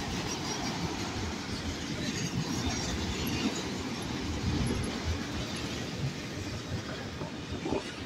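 Freight train of autorack cars rolling past close by: steady noise of steel wheels on the rails and the cars rattling, easing slightly near the end.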